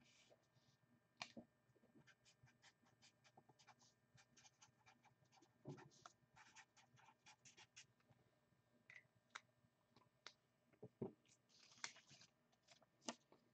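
Near silence broken by faint, irregular small clicks and a few light scraping sounds, several a second at times, with slightly louder clicks about a second in, near the middle and near the end.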